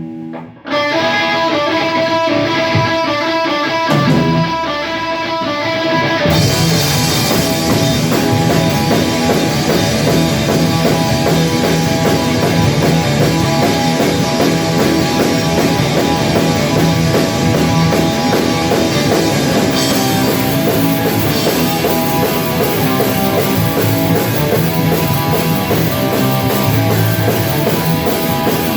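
Rock band playing: a guitar picks a melody alone for about the first six seconds, then drums and the full band come in loud and dense.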